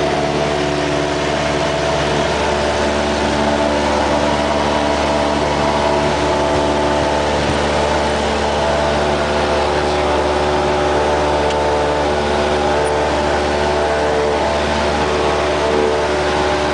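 Cessna 172's single piston engine and propeller running steadily at full takeoff power, heard from inside the cabin through the takeoff roll and lift-off.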